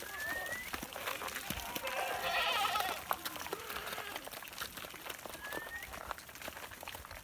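A goat or sheep bleats once, a wavering call of about a second, near the middle. A short rising whistle sounds near the start and again later, over faint scattered clicks.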